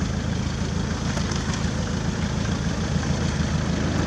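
Off-road 4x4's engine running steadily at low revs as the vehicle crawls over a muddy slope.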